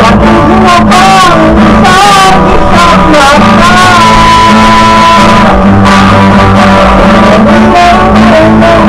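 A man singing loudly while strumming a cutaway acoustic guitar, with a long held note about four seconds in.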